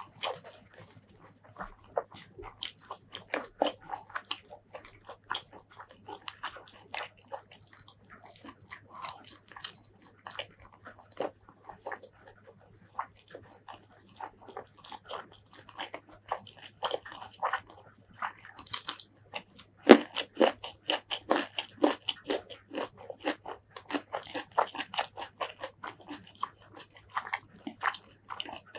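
Close-miked eating: a person biting and chewing food by mouth, with a quick, dense run of wet clicks and crunches. The chewing is loudest about two-thirds of the way through.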